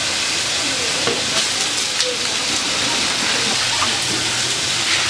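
Food cooking over high heat, giving a steady sizzling hiss, with a few light clicks.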